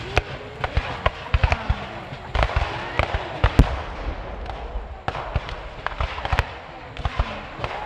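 Ragged independent fire from an infantry line of muzzle-loading rifle muskets: single shots going off one after another at uneven intervals, with no volley.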